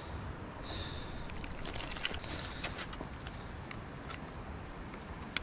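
Small sharp clicks and ticks of metal forceps working a fly out of a trout's mouth in a rubber-mesh landing net, thickest in the middle, with a short high squeak about a second in, over a steady low rush of background noise.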